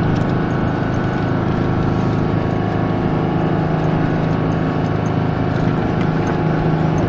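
Four-wheel-drive truck's engine running at a steady pitch, heard from inside the cab as the truck drives across snow.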